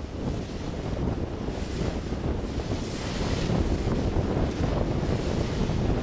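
Wind buffeting the microphone aboard a ship under way, over a steady rush of water.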